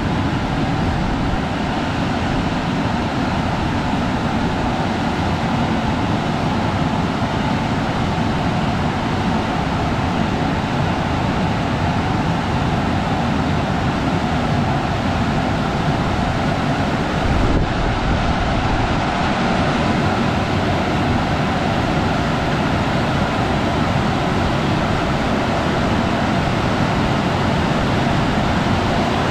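Aquarama Stargate S10 rollover car wash in operation, a steady, unbroken rushing noise of machinery and air or water, with a single brief bump about two-thirds of the way through.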